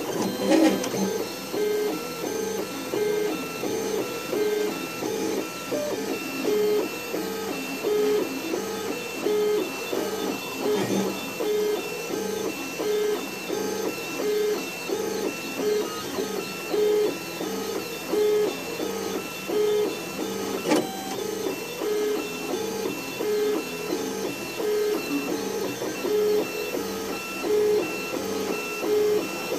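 MakerBot 3D printer's stepper motors whining as the print head traces a honeycomb pattern: short pitched tones in an even, repeating rhythm of about one a second, with a single faint click about two-thirds of the way through.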